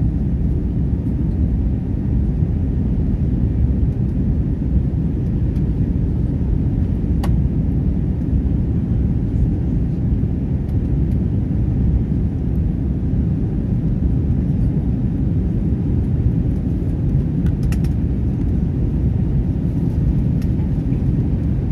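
Steady low rumble of an airliner cabin in flight, from engine and airflow noise while the plane is still climbing. A faint click about seven seconds in and a few more near eighteen seconds.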